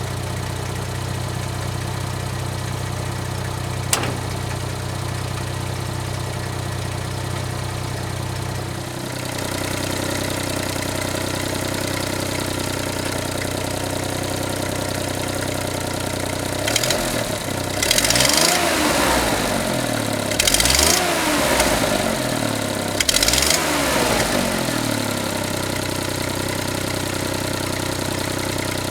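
Suzuki Jimny JA11V's small three-cylinder turbo engine idling, with a single sharp click about four seconds in, then revved up and let back down several times past the middle before settling to idle again. The owner hears an odd rattle (katakata) from the engine bay in this engine's running.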